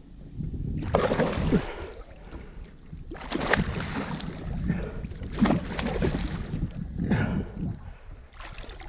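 Hooked tiger fish thrashing at the surface, splashing water in four bursts about a second apart.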